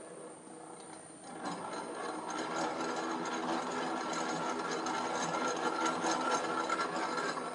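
Sigma Chef 7.5 electric planetary mixer starting up about a second and a half in and running steadily with a mechanical whir and rattle, with a faint high whine throughout, then stopping at the end.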